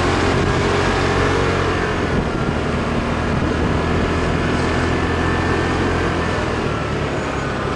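Motorbike engine running steadily while riding in city traffic, with wind and road noise over it.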